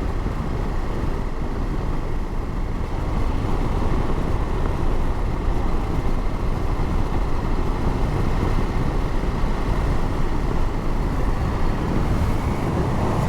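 Motorcycle riding at road speed, heard through an in-helmet microphone: steady engine and wind noise.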